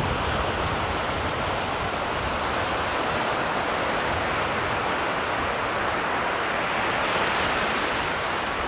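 Water rushing steadily down a channel, an even rush with no rise and fall.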